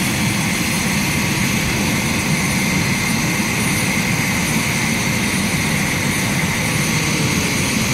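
Steady, loud engine drone: a low rumble with a high steady whine over it, running unchanged throughout.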